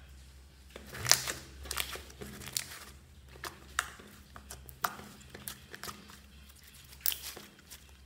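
Fingers poking and squeezing soft glitter slime, making irregular sticky clicks and crackles, the loudest about a second in.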